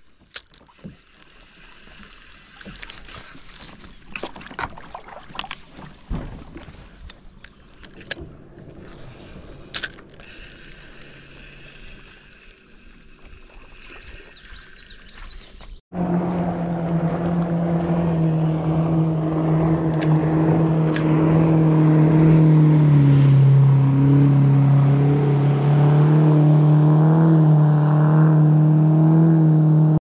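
Fishing reel being worked, with scattered clicks and light splashes. After a sudden cut about halfway through, a loud steady motor drone takes over, dropping to a lower pitch a few seconds later.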